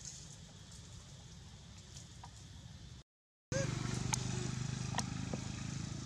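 Outdoor ambience with a steady low hum, scattered sharp clicks and a few short chirps. The sound drops out completely for about half a second just after three seconds in, then comes back louder.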